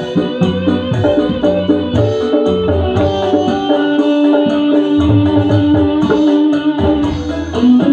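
Background music with a steady beat: held keyboard-like notes over a bass line and light hand percussion.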